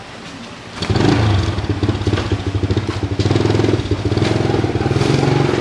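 A small motorcycle engine comes in suddenly about a second in and keeps running with a steady, rapid putter.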